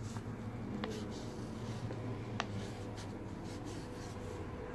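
A pen writing on folded paper, the tip scratching softly across the sheet, with a couple of faint clicks, over a low steady hum.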